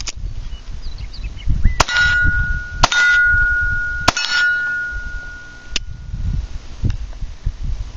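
.22 rimfire pistol shots striking a steel target: three sharp hits, each leaving the steel ringing with a clear tone for about a second. Fainter single pops come near the start and twice more later on.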